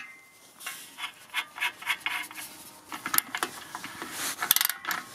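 Powerfix 8-in-1 double-ended ratchet ring spanner loosening a nut. The pawl rasps in several short runs of quick clicks as the handle is swung back and forth.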